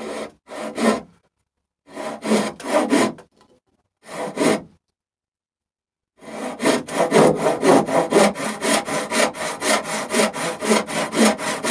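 Brass-backed dovetail saw cutting a dovetail by hand. A few short strokes come in separate bursts as the kerf is started on the knife line. From about six seconds in, a steady run of quick back-and-forth strokes follows.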